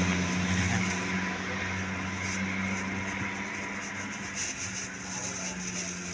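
A steady rushing noise with a low, even hum under it, slowly fading.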